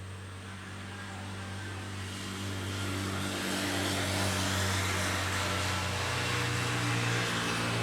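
A motor vehicle engine running with a steady low hum, growing louder over the first few seconds as it draws near.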